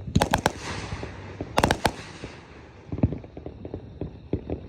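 Fireworks bursting: a quick cluster of sharp bangs right at the start and another about a second and a half later, each trailing off, then a few fainter, duller thumps.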